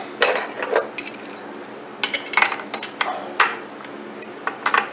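Metal tools and parts clinking and knocking as they are picked up and set down, about half a dozen sharp clanks with short gaps between them.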